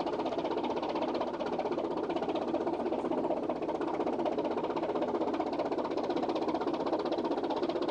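Diesel engine of a passing river barge running steadily with a rapid, even beat.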